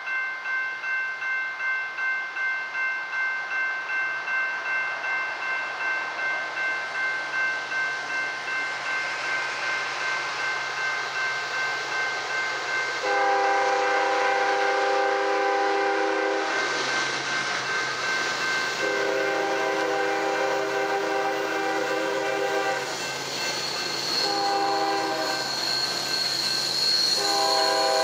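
Norfolk Southern GE ES40DC diesel locomotive approaching, its horn sounding the long-long-short-long grade-crossing signal from about halfway through, over the low rumble of the engine. Before the horn, a bell rings steadily about twice a second, and a thin high squeal joins near the end.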